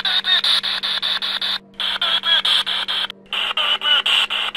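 A spirit box (radio rapidly sweeping the AM band) giving out choppy static, chopped into quick even pulses several times a second, with brief snatches of broadcast voice. It cuts out briefly twice.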